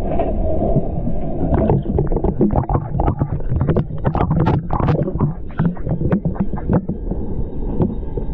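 Steady low rumble of a steam locomotive's firebox and running gear, muffled through a water-filled camera housing, with a quick run of knocks and clatter from about two to seven seconds in.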